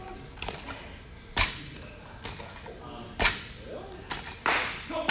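Repeated sharp slaps or impacts, about one a second, some louder than others, each with a short echo.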